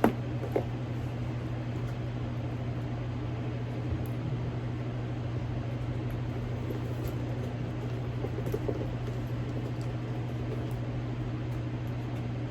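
Steady low mechanical hum of room background noise, with a few faint clicks and light handling noises from a handbag being handled, the sharpest click right at the start.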